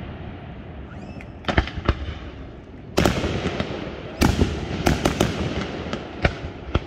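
Aerial firework shells bursting: a few sharp bangs about a second and a half in, then a heavier string of booms from about three seconds on, each echoing briefly.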